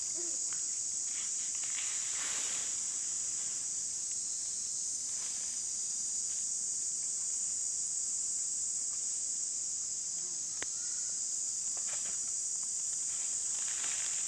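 Steady high-pitched drone of an insect chorus, unbroken throughout, with a few faint rustles and one sharp click about ten and a half seconds in.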